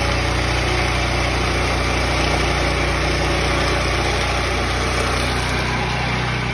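A Turbosawmill portable sawmill's small gas engine running steadily under load as the saw cuts along a maple log.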